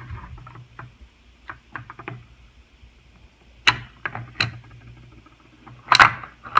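Plastic clicks and knocks from handling a smoke detector as its battery compartment is opened and the battery pulled out by its tab. A few faint ticks come first, then sharp clicks about three and a half seconds in, with the loudest near the end.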